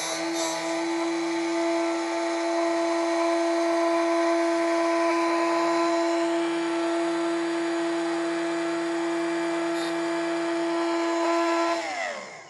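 Small handheld electric rotary grinder with a tungsten-sharpening attachment running with a steady whine, with brief gritty grinding near the start as the tungsten electrode is fed onto the wheel. Near the end the motor is switched off and its pitch falls as it spins down.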